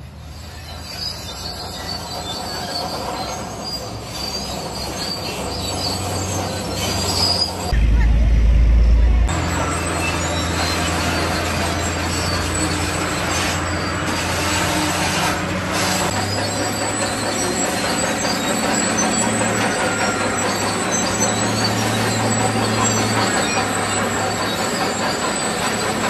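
Small crawler bulldozer at work, its diesel engine running steadily under the squeal and clank of its steel tracks as it pushes rock fill. About eight seconds in, a loud low rumble lasts a second or so.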